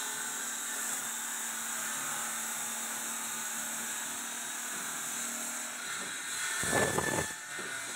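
Belt-driven, water-fed circular stone-cutting saw running and cutting stone slabs, a steady hiss over a low motor hum. About seven seconds in there is a short, louder noisy burst.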